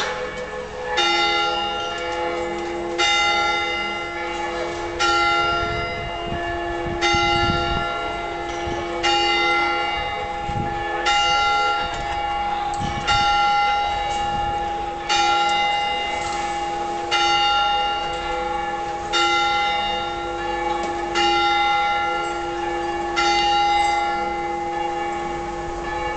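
Carillon bells of the Béthune belfry playing a slow tune: a group of bells struck together about every two seconds, each ringing on into the next.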